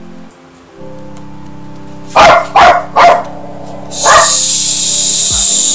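A dog barking four times in quick succession, about two seconds in, over background music, followed by a hiss lasting nearly two seconds.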